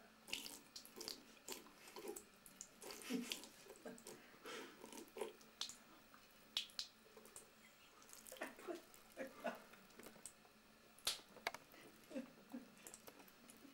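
Faint, irregular splashes and drips from a thin stream of tap water falling onto a cat's wet fur and into a ceramic bathroom sink.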